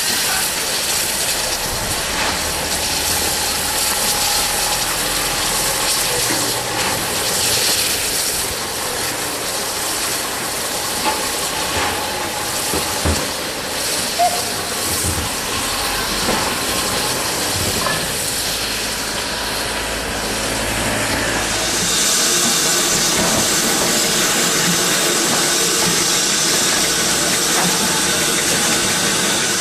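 Steam hissing steadily from BR Standard Class 7 Pacific No. 70000 'Britannia' standing in steam, with a few light knocks around the middle. The hiss becomes louder and sharper about three-quarters of the way through, close beside the locomotive's wheels and cylinders.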